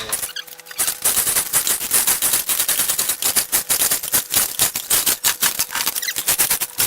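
Rapid, irregular run of sharp metallic clacks and rattles, several a second, starting about a second in and going on to the end: metal parts knocking against one another during work on a milling machine head.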